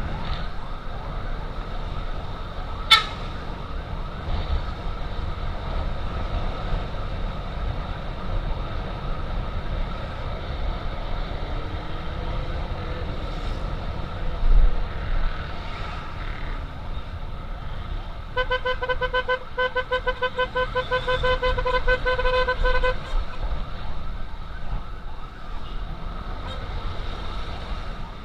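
Steady wind and engine rumble from a motorcycle riding through traffic, with a sharp click about three seconds in. About eighteen seconds in, a siren sounds a rapid, even string of beeps at one steady pitch for about five seconds.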